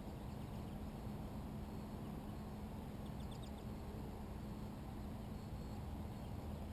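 Steady low rumble with a faint hum, and a quick run of four or five high bird chirps about three seconds in.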